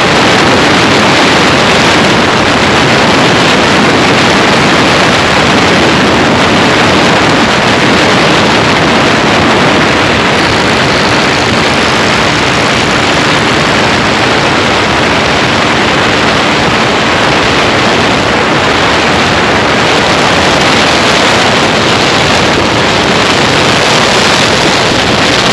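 Loud, steady rush of wind buffeting the microphone and road noise from riding at speed, with a faint engine hum underneath.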